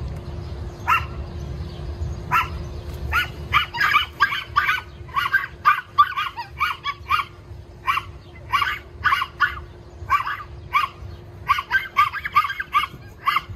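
Dogs barking at each other across a chain-link fence: a German Shepherd pup and small dogs. Sharp, high barks come a few at a time at first, then in quick runs from about three seconds in.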